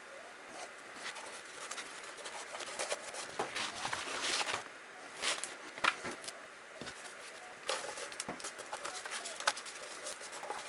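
Irregular scratchy brush strokes and small taps: a paintbrush dry-brushing copper paint onto the plastic body of a Nerf Rival Kronos blaster as it is handled.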